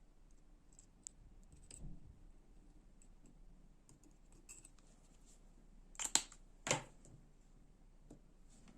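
Small metal parts of a folding knife and small hand tools being handled, giving scattered light clicks and scrapes, with two louder clacks close together about six seconds in.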